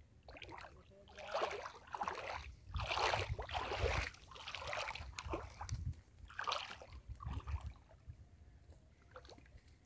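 Water splashing and sloshing in irregular bursts as a fishing net with a big fish in it is hauled in by hand through waist-deep river water, dying away near the end.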